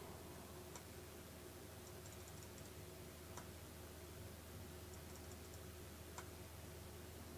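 Near silence: room tone with a low hum and a few faint, sharp clicks.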